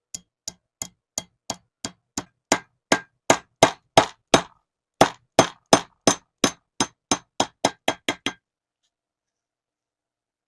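A hammer striking metal in a steady series of about 25 sharp, ringing blows, roughly three a second, with a brief pause partway through and the blows coming faster just before they stop.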